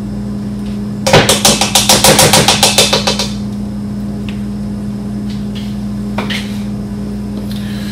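A quick run of about twenty sharp knocks, roughly ten a second for two seconds starting about a second in, as a plastic tub of cottage cheese is knocked out into a stainless mixing bowl. A steady low hum runs underneath.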